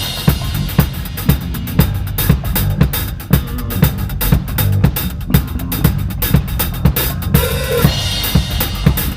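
Close-miked drum kit played live in a steady groove, with kick drum, snare and fast, even hi-hat or cymbal strokes, and the band's music underneath.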